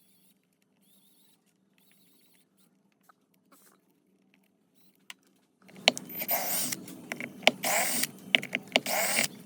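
Tape being pulled off a roll in about three long, rasping pulls with high squeals, starting about six seconds in, after a stretch of faint small handling clicks.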